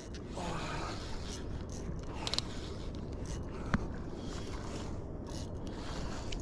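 Spinning fishing reel being cranked to retrieve line, giving short repeated rasping whirs, with one sharp click a little past halfway, over a steady low rumble of wind and water on the microphone.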